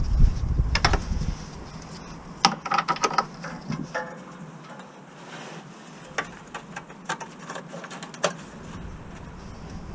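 Scattered clicks and knocks, with a few short metallic clinks that ring briefly, the busiest stretch a few seconds in; low wind rumble on the microphone fades out in the first second or so.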